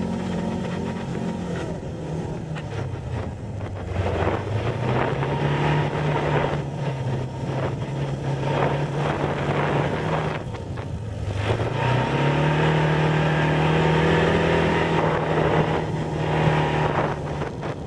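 Engine of an Arctic Cat off-road vehicle running under way across a grassy field, its pitch dropping around ten seconds in, then rising again about two seconds later and holding steady.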